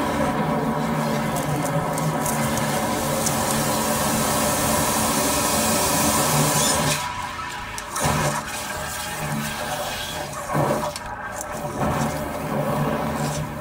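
Wastewater churning and gurgling in a backed-up drain inspection chamber as a high-pressure jetting hose works at the clog in its outlet pipe, over a steady machine hum. The rushing noise drops about seven seconds in, then comes back in uneven swells.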